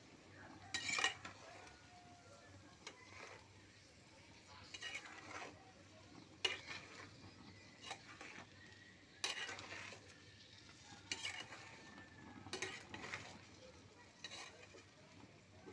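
Metal spatula stirring whole red chilies and garlic cloves in oil in a black pot, scraping against the pot in separate strokes about every second or two.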